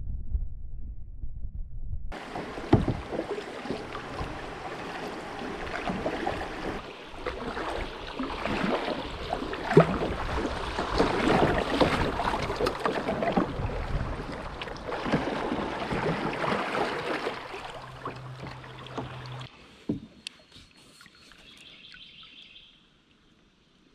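Rushing, splashing water as a kayak runs through a shallow riffle, with scattered knocks. It starts suddenly a couple of seconds in, after a low muffled rumble, and stops near the end, where the water goes calm and quiet.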